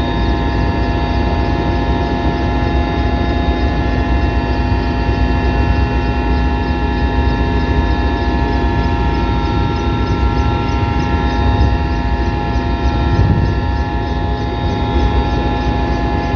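Aircraft engines running steadily, heard from inside the cabin: a loud, even noise with several steady tones over it.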